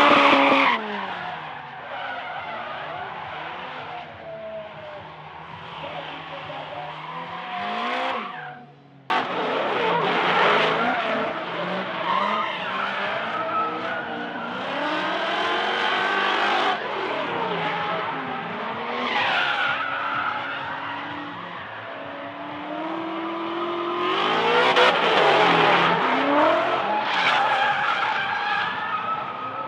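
Drift cars sliding with tyres squealing and skidding, their engines revving up and down at high revs. The sound drops away and breaks off abruptly about nine seconds in, then picks up again.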